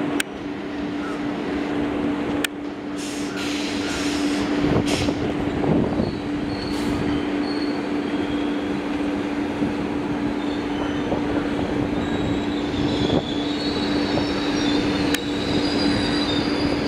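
Indian Railways passenger coaches rolling along the tracks, a steady rumble of wheels with a low hum underneath. High-pitched wheel squeal comes in thinly and grows stronger in the second half.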